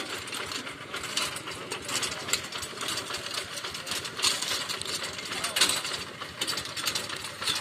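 Rice-field hand tractor running, a dense mechanical clatter of rapid, irregular knocks and rattles.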